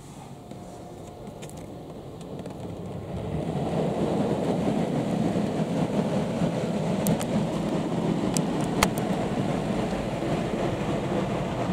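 Aquatus Prime touchless car wash spraying foam and water over the car, heard from inside the cabin: a rushing spray that swells about three seconds in and then holds steady, with a few sharp ticks partway through.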